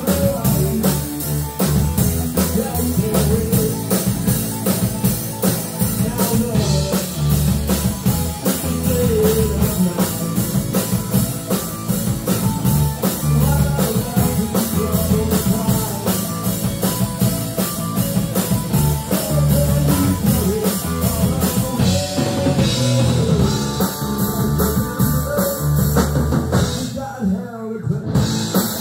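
Live rock band playing: drum kit, electric bass and electric guitars. The music drops out briefly near the end.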